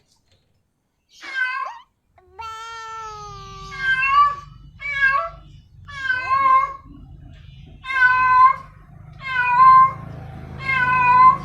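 Female cat in heat calling for a male: a run of about eight loud, drawn-out meows, one every second or so, starting about a second in, over a faint low hum.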